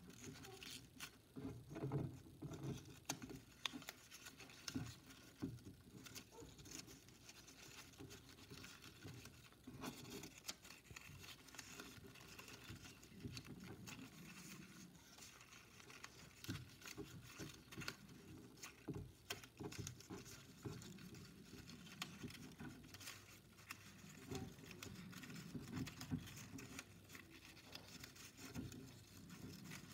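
Faint, irregular rustling and soft tapping of plain copy paper handled by hand as its fringe strips are rolled into loose rolls.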